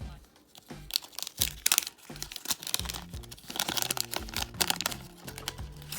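Crinkling and tearing of a trading-card pack's wrapper as it is opened, in bursts of sharp crackles, over background music.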